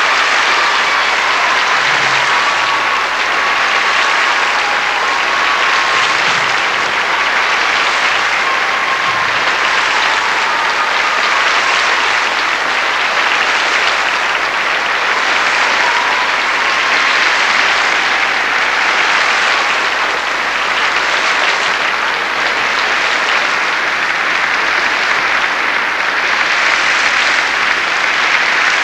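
Large audience applauding steadily, with no break.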